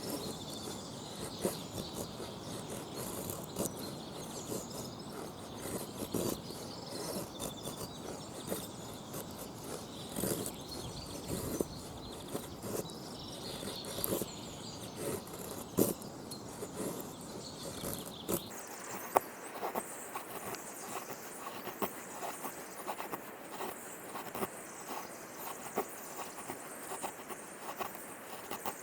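Wavy-edged main blade of a Victorinox Soldier pocket knife shaving curls off a small wooden stick to make a feather stick: a run of short, irregular scraping strokes. The sound changes abruptly about two-thirds of the way through, becoming thinner.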